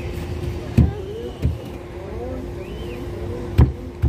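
Soccer ball being kicked on artificial turf: a few sharp thuds, the loudest about a second in and again about three and a half seconds in, over a steady hum and faint voices.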